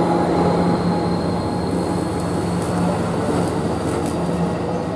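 Amtrak bilevel passenger cars rolling past close by: a steady rumble of wheels on rail with a low hum underneath.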